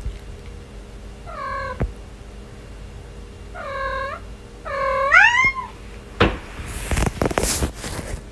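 A cat meowing three times, the third call the loudest and longest, rising then falling in pitch. Then, a little later, a spell of knocks and rustling.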